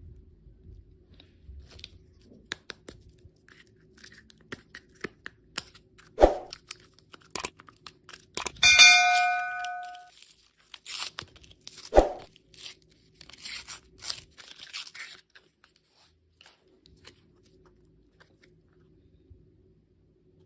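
Candy packaging being handled and torn open: scattered crinkles and clicks, two sharp knocks, and a short ringing ding about a third of the way in, as of a small hard object struck.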